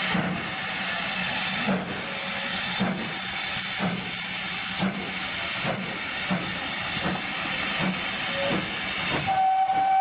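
Steam locomotive pulling away under steam, a steady hiss with exhaust chuffs about once a second that quicken as it gets going. Its whistle sounds one steady note near the end.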